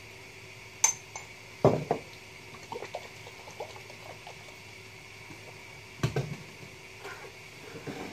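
Pancake pan and kitchen utensils knocking and clattering, with a sharp click about a second in and two heavier knocks, over a faint steady hiss and hum of the cooking.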